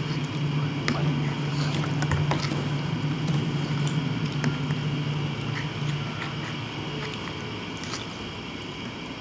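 Eating sounds: a fork clinking and scraping on a ceramic plate of spaghetti, with chewing and scattered small clicks. Under them runs a steady low hum that fades over the second half.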